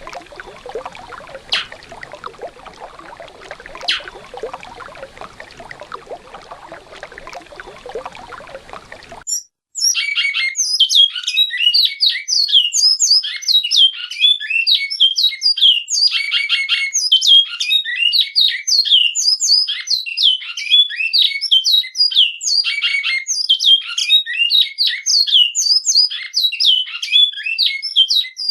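Running river water for about nine seconds, which cuts off suddenly. Then a recorded bicudo (great-billed seed-finch) sings its classic Alta Mogiana song: a loud, fast, unbroken run of high whistled and chirped notes.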